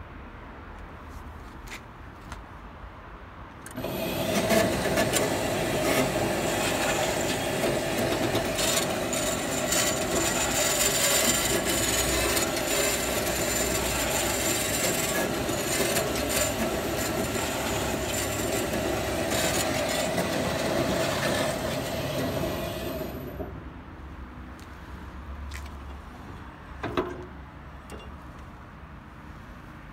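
Hitachi CB 22FA2 metal-cutting band saw switched on about four seconds in, its motor and band blade running steadily with a constant mid-pitched tone and a high whine for about twenty seconds, then switched off and running down. A single clack comes near the end.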